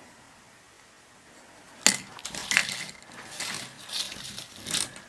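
A sharp crack, then a few seconds of irregular crinkling and crushing noise from something being handled and squeezed, ending abruptly.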